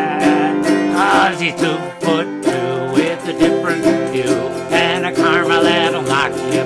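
Autoharp strummed in a steady rhythm for an instrumental break, with a harmonica playing short wavering melody phrases over the chords about a second in and again near the end.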